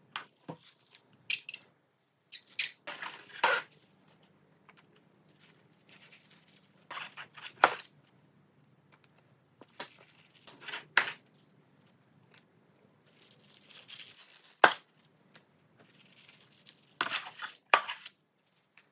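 Slime being squished, poked and stretched by hand: irregular sticky pops, clicks and short crackles with brief quiet gaps between, the loudest sharp pops near the middle and end.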